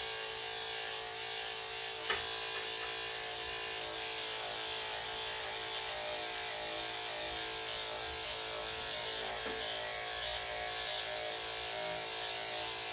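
Corded electric dog clippers running steadily as they shave the fur on a small dog's leg and chest, with a single sharp click about two seconds in.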